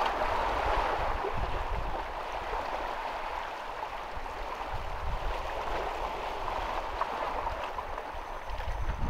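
Small sea waves washing and gurgling against shore rocks, with wind rumbling on the microphone.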